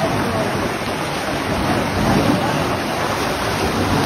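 Turbulent water churning and rushing through a concrete sluice gate: a loud, steady rush of noise.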